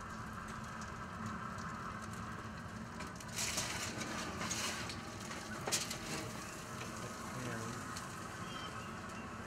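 Aluminium foil crinkling and rustling, with a sharp metal click, as a roast in a foil tray is lifted off a smoker's grate. The crinkling comes a few seconds in and runs for about three seconds over a steady hum.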